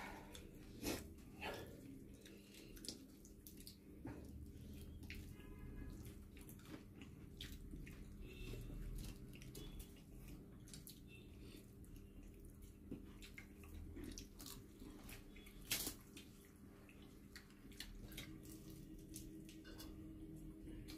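Eating sounds of rice and malai prawn curry eaten by hand from a metal plate: chewing and lip smacks with soft clicks of fingers against the plate, one sharper click about three-quarters of the way through, over a steady low hum.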